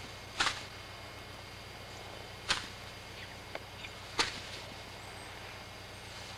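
A grazing horse makes three short, sharp rasping sounds about two seconds apart.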